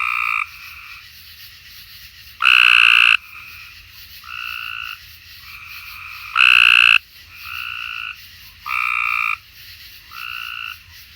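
Several Cope's gray tree frogs giving their regular trilled call, one close and loud in short calls about every two to three seconds, others softer in between.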